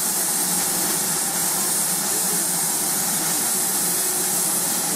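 GWR 5600 class 0-6-2 tank steam locomotive standing at idle, a steady, unbroken hiss of escaping steam.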